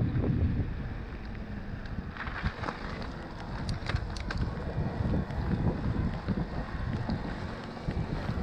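Wind buffeting the microphone while riding a mountain bike: a steady, noisy low rumble with a few sharp clicks and rattles from the bike on the trail.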